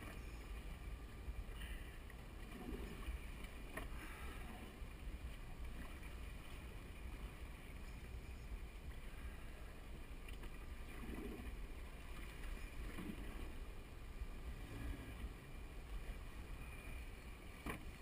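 Water sloshing and lapping against a small boat's hull on open sea, with a steady low wind rumble on the microphone.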